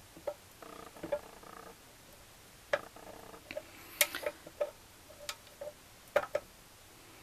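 A handful of sharp, irregular metal clicks and taps as the gear shift fork and selector parts are handled and fitted onto the shift drum in the Gilera Sport 150's aluminium crankcase.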